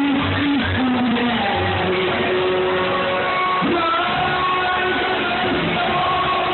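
Loud live music from a concert sound system, heard from the crowd through a phone microphone, with a wavering melodic line over dense backing and no high treble.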